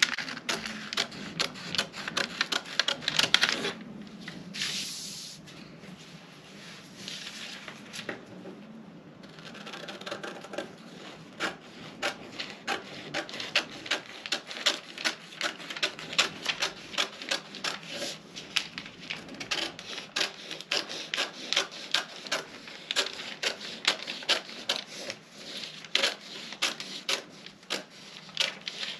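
Scissors cutting out a paper sewing pattern: a steady run of snips, about two or three a second, with the paper rustling in between.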